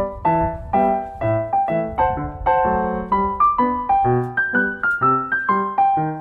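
Background piano music: a light melody of struck notes, about two or three a second, each dying away before the next.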